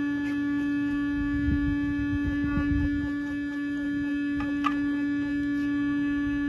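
Small vibration motor on a plastic gold-finishing table humming at one steady pitch as it shakes the water-filled tray. A low rumble swells briefly in the middle.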